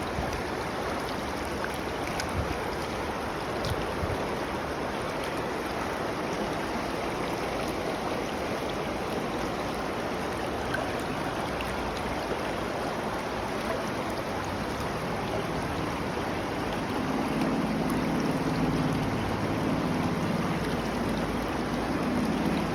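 River water flowing steadily over a trout stream, an even rushing sound. A deeper rushing layer grows in over the last several seconds.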